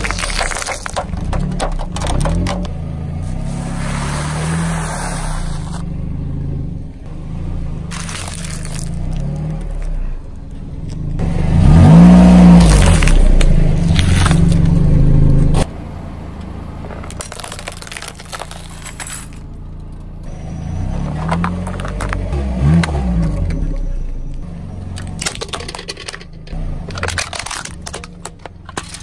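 A car tyre rolls over plastic paint tubes and squashes them, followed by the car's engine and tyres moving on asphalt. The loudest stretch, about twelve seconds in, rises and falls in pitch and cuts off suddenly a few seconds later.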